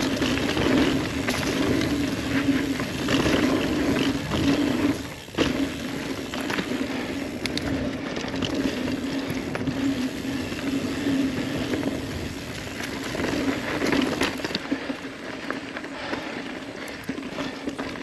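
Ibis Ripley mountain bike rolling fast down a dirt singletrack: knobby tyres running over the dirt with a steady hum, and scattered knocks and rattles from bumps and roots, a sharper knock about five seconds in.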